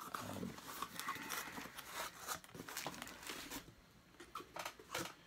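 Hands rustling and crinkling cardboard and packing material while digging a boxed figure out of a mystery box, with scattered light clicks and taps; it goes quieter a little before the end, then a few sharper taps.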